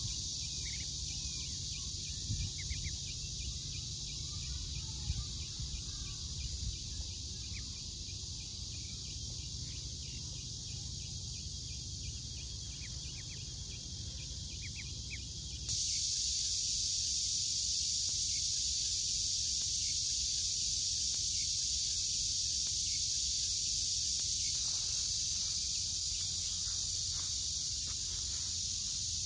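Outdoor ambience: a steady high insect chorus over a low rumble, with a few faint short duckling peeps in the first half. The chorus jumps suddenly louder about halfway through.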